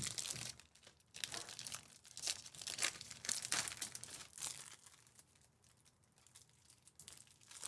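Foil wrapper of a Panini Mosaic basketball hobby pack crinkling and tearing as it is peeled open by hand, in uneven crackles. The crackling dies down over the last few seconds as the cards come out.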